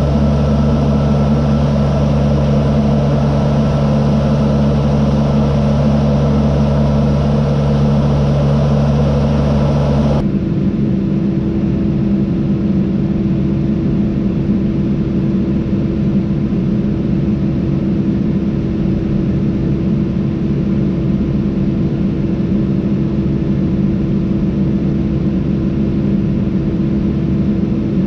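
Tractor engine running under load while it powers a Teagle Tomahawk 8500 bale processor shredding and blowing straw bedding, a steady mechanical drone. About ten seconds in, the sound changes to the duller, steadier drone heard inside the tractor cab, with a steady hum over it.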